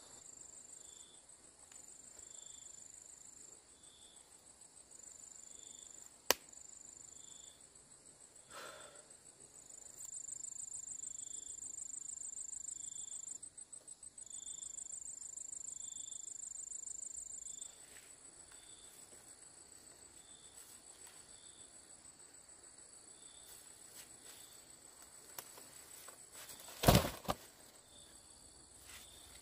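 Insects trilling: a steady high trill with a softer chirp pulsing about once a second, and a louder buzz that comes in about a third of the way through and runs for about eight seconds. A few sharp knocks cut through, the loudest near the end.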